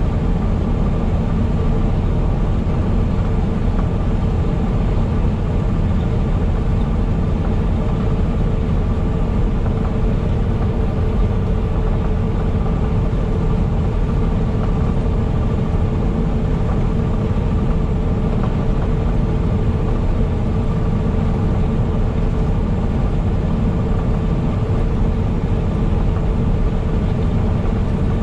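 Steady drone of a semi truck's engine and road noise heard inside the cab while cruising at constant speed, with a faint steady whine above the rumble.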